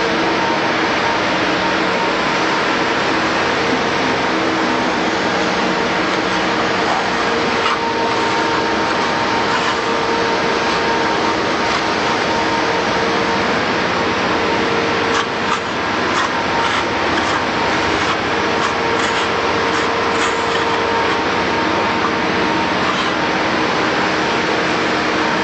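A machine motor running with a steady drone and a constant whine, with a few light clicks and scrapes about two-thirds of the way through.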